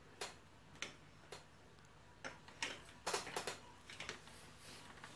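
Faint, irregular clicks and taps of a 3D-printed plastic battery clip, loaded with a battery, being handled and pressed onto a stand pole, with a quick cluster of clicks about halfway through.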